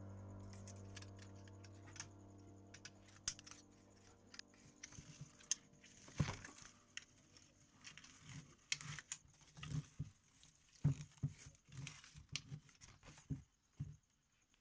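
Background music fading out over the first few seconds, then irregular light clicks, taps and rustles of hand work as a wound copper coil is fitted into a table fan motor's stator slots, with one louder knock about six seconds in.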